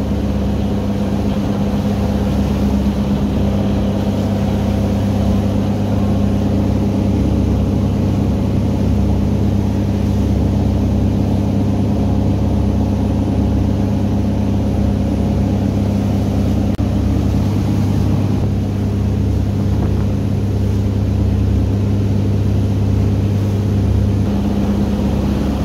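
Tour boat's engine droning steadily at speed, with the churning wake rushing behind the stern; the lowest hum drops out shortly before the end.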